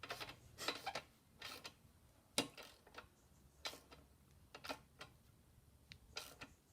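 Sharp clicks of a wrench working a 17 mm bolt on a radiator bracket, in short bursts roughly once a second, as the bolt is tightened down against rubber grommets.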